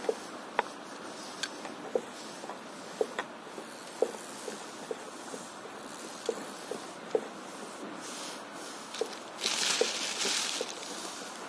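Small waves lapping against an inflatable stand-up paddleboard: irregular, hollow little plinks and slaps, about one or two a second. About nine and a half seconds in, a brief hiss of rustling or wind comes over them.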